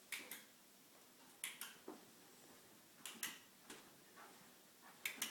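Miniature bull terrier sniffing: faint, quick sniffs in pairs and threes, a group every second or two.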